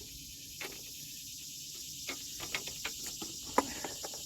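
A series of irregular short clicks and knocks, more frequent in the second half, over a steady high hiss.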